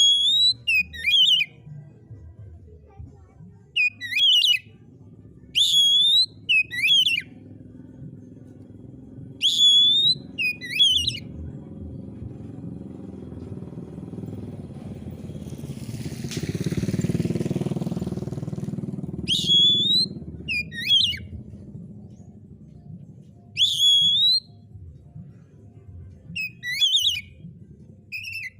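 Oriental magpie-robin singing loud, sweeping whistled phrases in short bursts every one to four seconds. Midway a low rumble swells up and fades away under the song.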